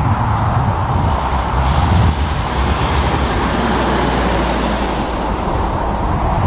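Road traffic, with a heavy truck's engine rumbling as it passes and a faint high whine that slowly falls in pitch.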